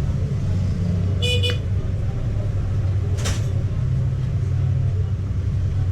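Steady low engine-like hum, with a short high-pitched tone about a second in and a sharp click about three seconds in.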